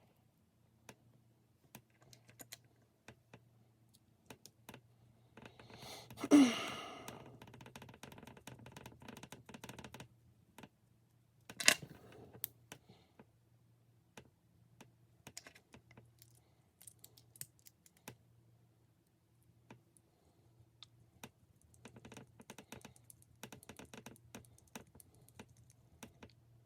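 Scattered light clicks and taps of small plastic and metal RC truck parts being handled and fitted by hand, with a brief rustle about 6 seconds in and a sharper click near 12 seconds.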